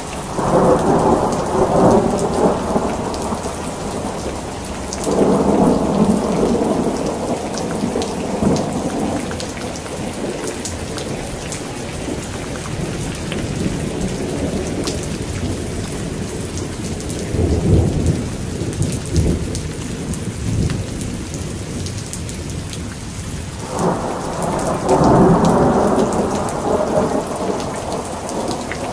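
Heavy rain falling steadily in a thunderstorm, with thunder rolling four times: at the start, about five seconds in, a lower and deeper roll past the middle, and again near the end.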